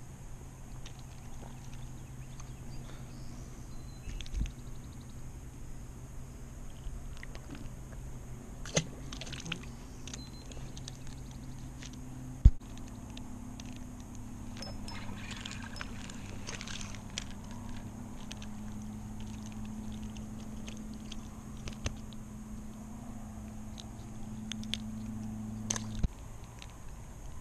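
Spinning reel being cranked on a steady retrieve, giving a continuous low whirring hum that stops abruptly near the end. A few light clicks come through, with one sharp click about halfway.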